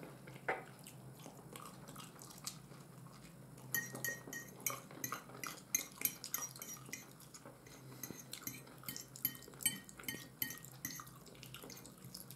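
A metal fork clicking and scraping on a plate of fried eggs, in a run of quick, light clinks from about four seconds in, with soft wet chewing between them.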